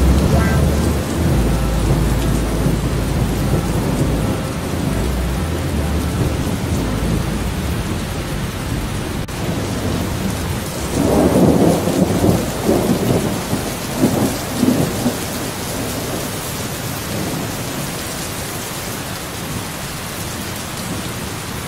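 Steady rain with rolling thunder. A deep rumble runs through the first few seconds, and a louder peal rumbles from about halfway through for several seconds.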